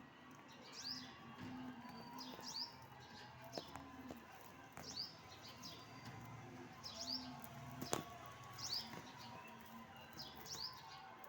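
Nestling birds chirping for food: high, short down-slurred cheeps in small clusters about once a second. A single sharp click about eight seconds in.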